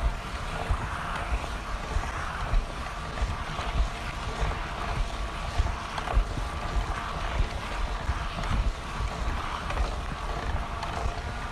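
Wind buffeting the microphone in uneven gusts, with a faint steady whine in the background.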